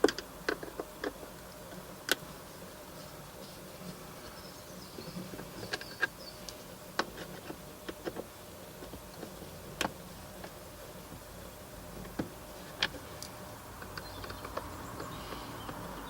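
Phillips screwdriver working the screws out of a plastic steering column shroud: scattered, irregular sharp clicks and ticks of metal on screw heads and plastic, over a faint steady background hum.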